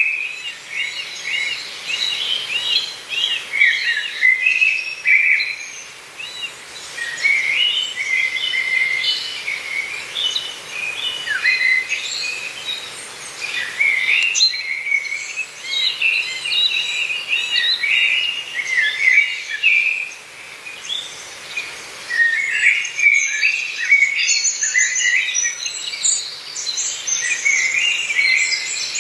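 Several forest songbirds singing and calling over one another in quick chirping and warbling phrases, with brief lulls about six and twenty seconds in.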